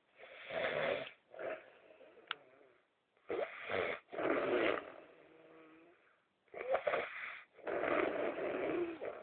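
A sleeping man snoring: three snores about three seconds apart, each in two rasping parts, with quiet gaps between them.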